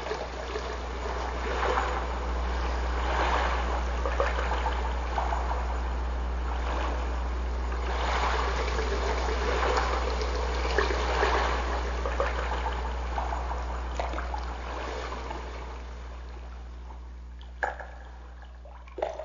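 Water trickling and gurgling in uneven swells over a steady low hum. It fades out towards the end, with two short knocks near the end.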